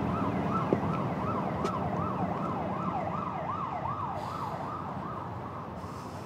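Emergency-vehicle siren in a fast yelp, its pitch rising and falling a little more than twice a second, slowly fading away over a steady low background rumble.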